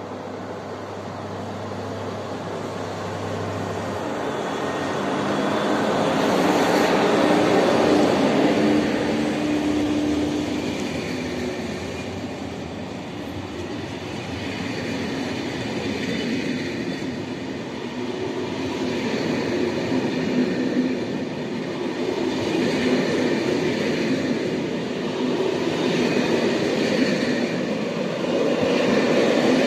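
SNCF BB 22200 electric locomotive and its train of TER passenger coaches running past: a steady low hum from the locomotive for the first few seconds, then the rolling and clattering of the coaches' wheels on the rails, swelling about seven seconds in, easing, and building again near the end.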